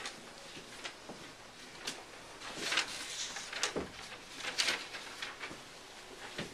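Handling noise: papers and a bag rustling with a few light knocks and clicks, in a handful of short, sharp rustles, the loudest in the middle.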